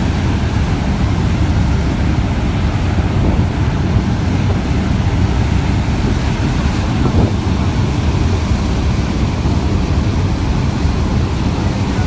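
Steady low rumble of a fast boat under way, with its churning wake and wind buffeting the microphone.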